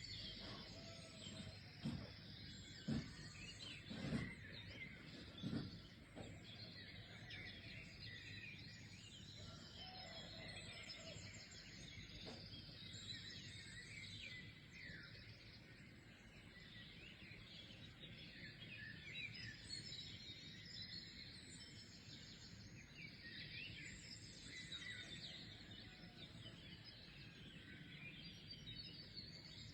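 Faint chorus of small birds chirping and twittering throughout. There are several low thumps in the first six seconds.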